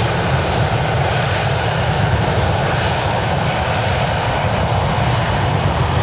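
Boeing 787 Dreamliner's Rolls-Royce Trent 1000 turbofan engines at takeoff power during the takeoff roll: loud, steady jet engine noise with a deep rumble underneath.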